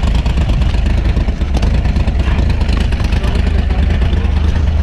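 Rock-crawling buggy's engine running steadily at a low, even pitch, with no clear rise or fall in revs.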